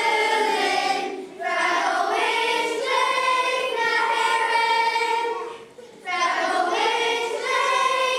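A children's choir singing held notes in phrases, with short breaks between phrases about a second in and again near six seconds in.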